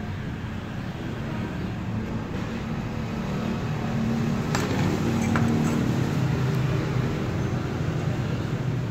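A motor runs with a low, steady hum that grows louder about four seconds in, with two light clicks a little after the middle.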